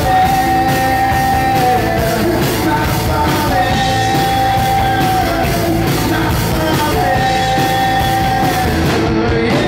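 Live rock band playing: electric guitars, bass and drums under a voice holding long notes, three of them, each nearly two seconds. The drums and cymbals drop out about nine seconds in as the song closes.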